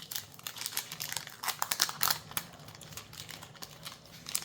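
Plastic foil booster-pack wrapper crinkling as trading cards are handled, in irregular crackly rustles that are loudest about two seconds in.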